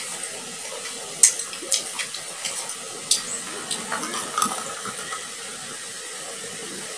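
Dark soda poured from a glass bottle into a tall drinking glass, the liquid running and fizzing. A handful of sharp clinks in the first five seconds or so, the loudest about a second in.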